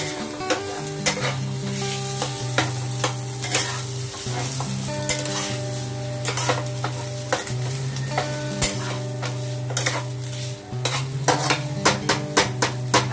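Metal spatula scraping and tapping against a nonstick frying pan as boiled potato and carrot are stirred and mashed into spices frying in oil, with a low sizzle; the clicks come thick and fast near the end. Soft background music with long held notes plays underneath.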